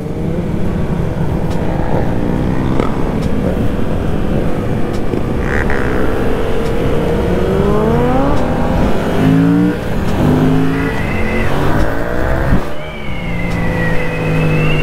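Yamaha FZ-07's parallel-twin engine under way on the road. Partway through it accelerates, the engine note rising and then stepping down with each gear change. Near the end it eases off briefly before holding a steady note.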